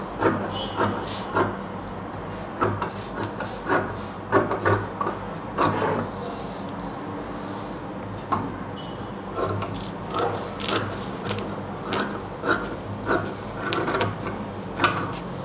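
Scissors cutting along a paper pattern through folded fabric: irregular snips and scraping of the blades, over a steady low hum.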